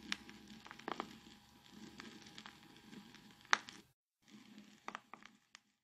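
Faint, scattered sharp clicks and pops over low background noise after the music has ended, with a short drop to dead silence a little before four seconds in.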